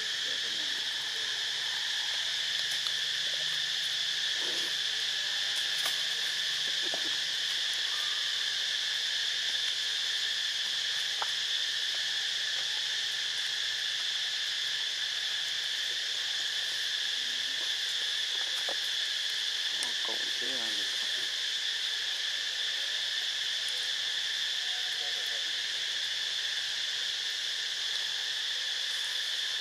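Steady chorus of insects chirring, an unbroken high drone that holds at the same level throughout.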